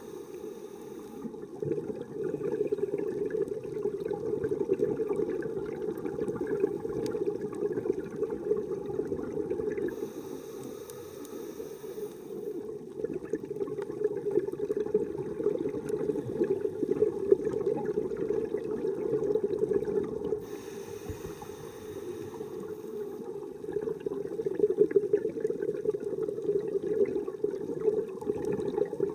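Scuba diver's exhaled bubbles streaming from the regulator, heard underwater as a low, bubbling rumble. It comes in long stretches of several seconds with quieter pauses between, following the diver's breathing.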